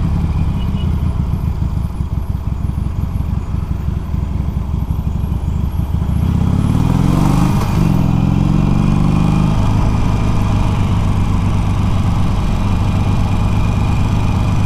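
Harley-Davidson Iron 883's air-cooled V-twin running on the move. Its pitch rises about halfway through as the revs climb, then it settles back to a steady drone.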